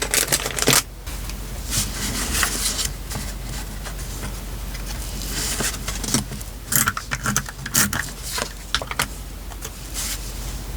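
Paper and stationery being handled while a journal page is decorated: irregular rustling and scraping with sharp taps and clicks, busiest about seven to nine seconds in.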